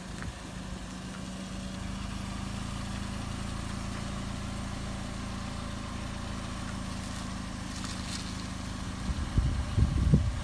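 Parked Toyota Corolla's engine idling with a steady low hum. A few louder low thumps come near the end.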